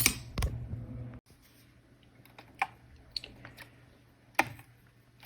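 Several sharp, scattered clicks and taps of hard plastic as an instrument cluster's casing and retaining clips are handled and prised apart. A low hum stops about a second in.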